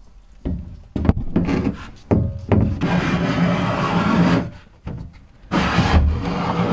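Plastic black-water holding tank being slid into its bolted metal support frame: a few knocks, then long scraping rubs of the tank against the frame, once about three seconds in and again near the end.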